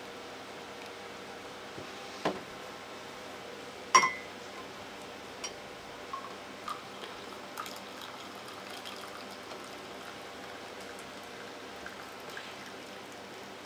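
Butter tea pouring from an enamel mug through a metal tea strainer into a glass cup, with a sharp ringing clink about four seconds in and a few lighter clinks after it.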